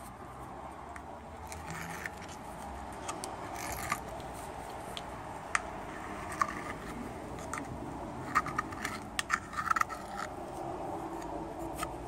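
Irregular scraping and light clicks of a hand scraper on the edge of an aluminium control arm's bush bore, with the metal arm being handled.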